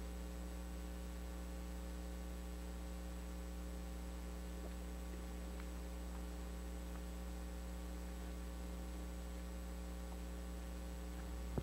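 Steady electrical mains hum in the sound system, a low buzz with a faint hiss over it and no other sound.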